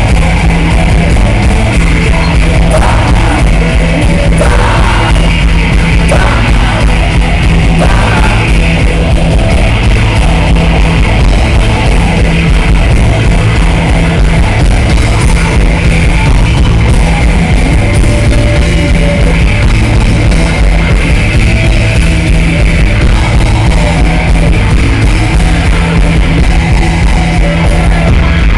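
Live rock band playing loudly through the PA, recorded from the audience, with a repeating low riff underneath.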